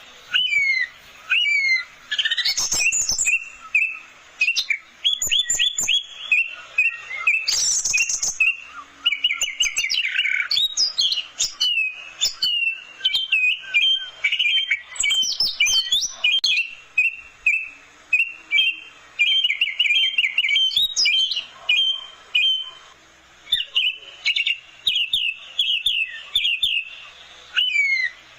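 Orange-headed thrush singing a long, varied song of quick whistled phrases and trills, one burst after another with only brief gaps.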